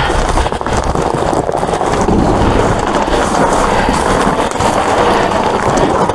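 Steady rustling and crinkling of plastic bags as a large bag of pet food is dragged out from among trash bags in a dumpster.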